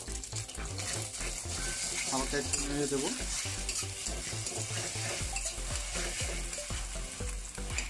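Beaten egg frying in hot oil in a metal wok, sizzling steadily, while a metal spatula scrapes and taps against the pan as it breaks the egg up.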